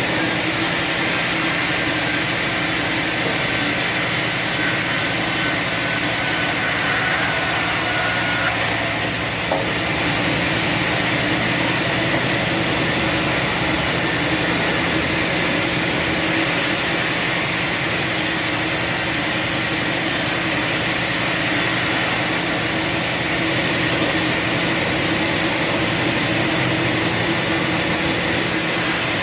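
Bandsaw sawmill running, its band blade sawing through a log over a steady engine hum. The sound holds steady, with a brief dip in the hiss about eight and a half seconds in.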